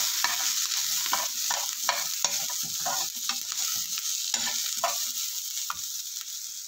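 Sliced onion, coconut pieces, garlic and cumin frying in coconut oil in a nonstick pan, with a steady sizzle. A metal spoon stirs and scrapes through them, about two strokes a second.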